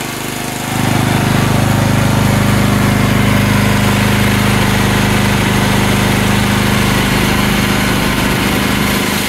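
AGT MX15R mini excavator's engine idling steadily while it warms up, with the newly fitted cooling fan running quietly behind the rear grille. The hum grows louder a little under a second in and then holds steady.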